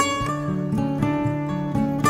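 Instrumental background music carried by plucked strings.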